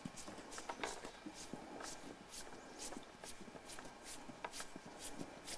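Footsteps on snow at a steady walking pace, about two steps a second.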